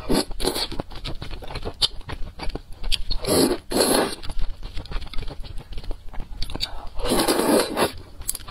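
Close-miked eating of thick noodles: wet chewing clicks throughout, with three louder slurps of noodles, one at the start, one about three and a half seconds in and one about seven seconds in.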